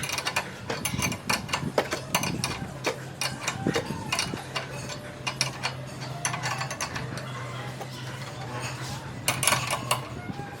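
Hand ratchet wrench clicking in short bursts on the suspension bolts under a Toyota Prius, with a steady low hum behind it.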